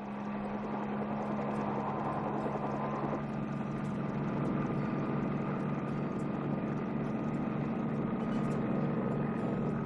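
Helicopter running steadily overhead: a constant engine and rotor noise with a steady low hum, fading in at the start.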